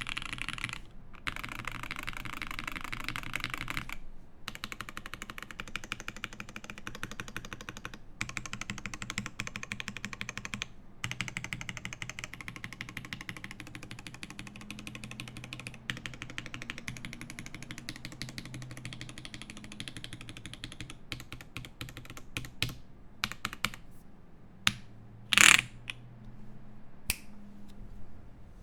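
Typing on a Bauer 2 mechanical keyboard with lubed OP Black switches on a polycarbonate plate and GMK keycaps: a fast, continuous run of keystrokes that thins out to scattered single presses in the last few seconds, with one much louder thump near the end.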